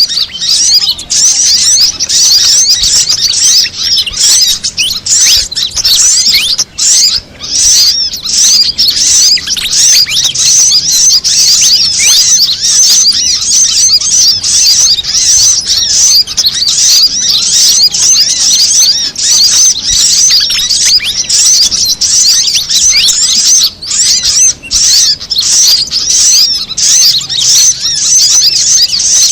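Layered bird-lure recording of fantail calls mixed with sunbird calls: a loud, dense, continuous stream of high-pitched, quick chirps and twitters, with a couple of brief lulls.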